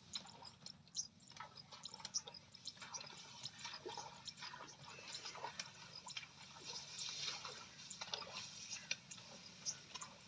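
Faint, irregular dripping and small splashes of water.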